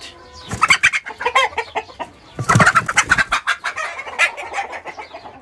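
Broody hens in wooden nest boxes clucking and squawking in agitated bursts, loudest around two and a half to three seconds in.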